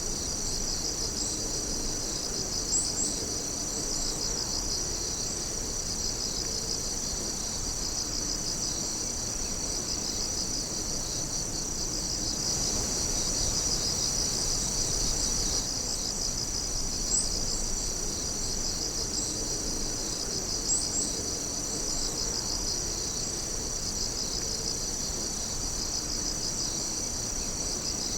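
Night insect chorus: many insects singing at once in a dense, steady, high-pitched trilling that pulses evenly, with a few sharper chirps standing out now and then.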